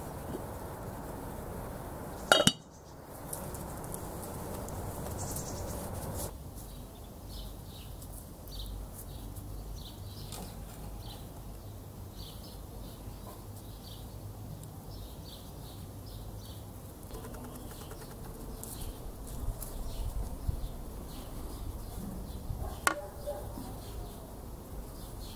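A metal pot lid clanks onto its pot once about two seconds in, with a brief ring. After that, small birds chirp over and over in the background, and a second sharp knock comes near the end.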